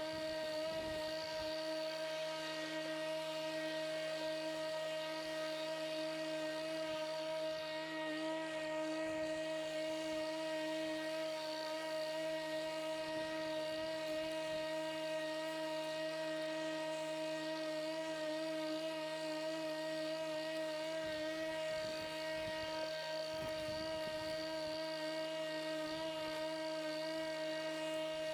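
Pellenc Rasion 2 Easy battery lawnmower running at a constant speed: an even, steady electric motor and blade whine with several pitched tones.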